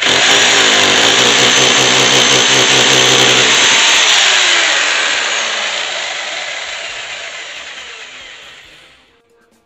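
Ozito hammer drill boring into a brick wall: it starts at full speed, runs steady and loud for about four seconds, then slows and dies away with a falling pitch over the next few seconds until it stops.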